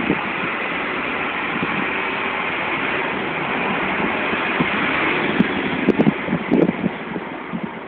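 Truck engine idling steadily, with a few short knocks about six seconds in.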